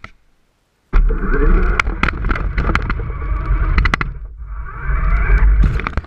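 Remote-control jeep driving, heard from a camera mounted on its front: electric motor and drivetrain whirring with low rumble and many rattling knocks as it runs over carpet. It starts about a second in and eases off briefly past the middle before picking up again.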